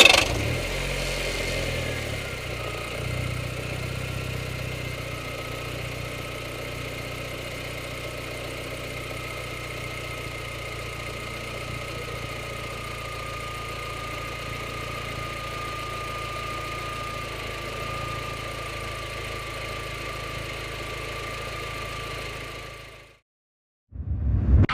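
KTM X-Bow's turbocharged four-cylinder engine settling into a steady idle just after starting, with a thin steady high whine coming in after about five seconds; the sound cuts off abruptly near the end.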